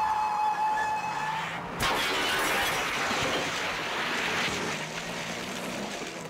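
Car crash: a steady high squeal, then a sudden loud crash with breaking glass about two seconds in, followed by sustained rushing noise that slowly fades.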